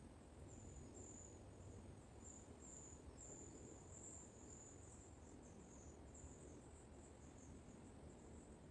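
Faint, high-pitched insect chirring, broken into short trills of about half a second, over a low rumble of wind in the woodland.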